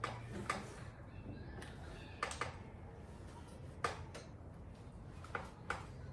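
Scattered light clicks and knocks, about a dozen at uneven intervals, from plastic costume and frame parts of a large animatronic prop being handled and fitted together.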